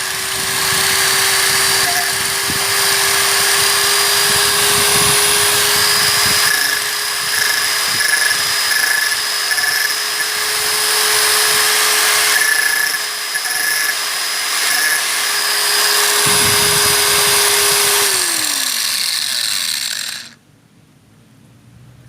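SIM-100B electric angle grinder running at a steady speed, then switched off about 18 seconds in, its motor pitch falling as it spins down before the sound cuts off.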